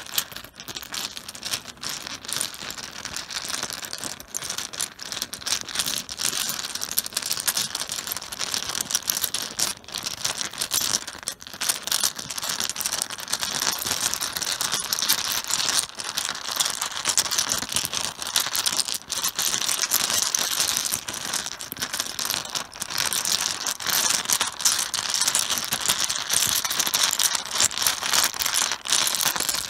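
Mahjong tiles being mixed by hand on a cloth-covered table: a dense, continuous clatter of tiles clicking against one another, a little louder in the second half.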